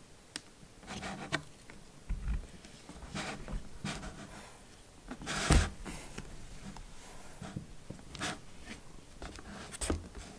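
Scratching and rubbing on a cardboard box in short irregular bouts, with a few light knocks and a louder thump about five and a half seconds in.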